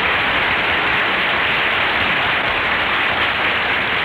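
Studio audience applauding steadily, the entrance applause greeting a cast member's arrival on a live radio comedy show. It is heard through an old, narrow-band broadcast transcription that sounds muffled and lacks the top end.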